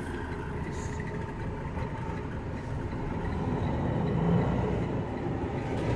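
Semi-truck's diesel engine running at low speed, heard from inside the cab as a steady low rumble with road noise, swelling slightly about four seconds in.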